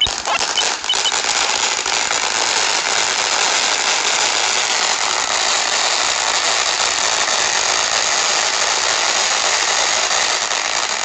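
Ground fountain firework burning steadily, a dense, even hiss of sparks.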